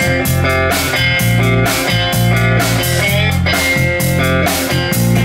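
Live band playing an instrumental passage between vocal lines: electric guitar, bass guitar and a drum kit keeping a steady beat.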